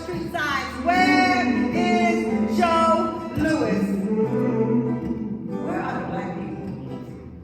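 Live music: a voice singing long, drawn-out notes over guitar accompaniment and steady low bass notes. The singing fades after about three and a half seconds while the accompaniment carries on.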